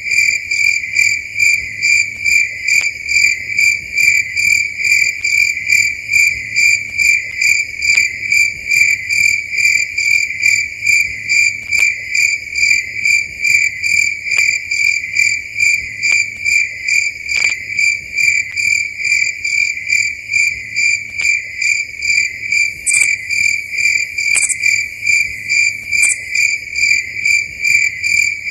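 A cricket chirping steadily in an even, unbroken rhythm of about two to three chirps a second.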